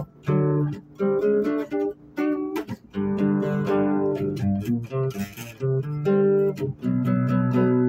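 Instrumental music on a plucked string instrument, sounding as a guitar: picked single notes and fuller strummed chords, each note struck sharply and fading.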